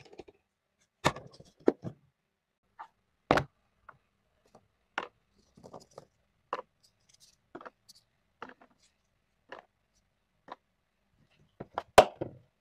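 Plastic lunch boxes and clay play-food being handled on a tabletop: a string of short, separate clicks and taps, the loudest a sharp snap near the end as a plastic lid is pressed shut.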